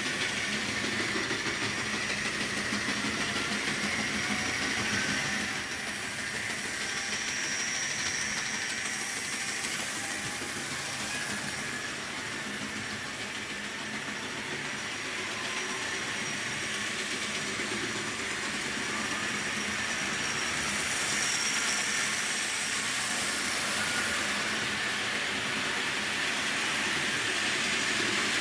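Tyco HO-scale GG-1 model locomotive running on its track: a steady electric motor whir and the rumble of wheels on the rails, slowly fading a little and swelling again.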